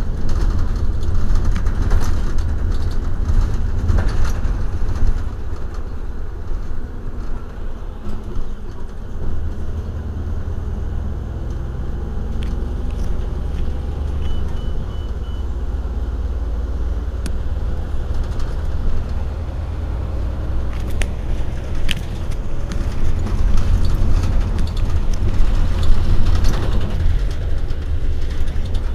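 Iveco Urbanway 12 city bus idling at a stop, with a steady low engine rumble. A short run of four high beeps sounds about halfway through.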